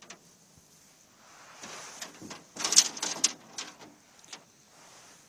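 Clattering knocks and scrapes on a small metal boat. A soft scraping rush is followed, about halfway through, by a loud cluster of knocks, then a few single clicks.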